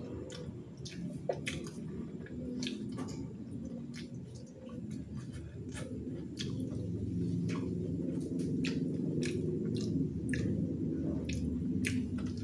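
Close-up wet eating sounds of a man gnawing and sucking the meat off a stewed chicken foot: smacking, squishing, and many irregular sharp clicks of chewing, over a low steady background drone.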